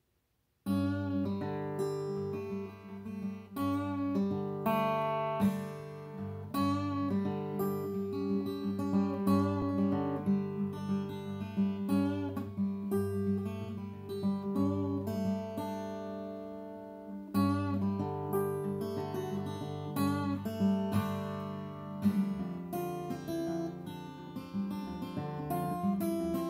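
Steel-string acoustic guitar played solo in an improvised piece: picked notes ring over a sustained low bass note. Near the middle the playing thins to a few ringing notes, then comes back with a sharp strum.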